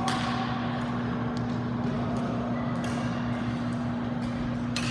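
Badminton rackets striking a shuttlecock in a rally: a sharp hit at the start and a louder one near the end, with fainter hits between, over a steady low hum. Brief shoe squeaks on the court floor come in around the middle.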